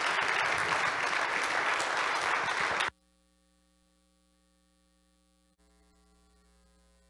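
Congregation applauding, cut off abruptly about three seconds in. Then near silence with a faint steady electrical hum.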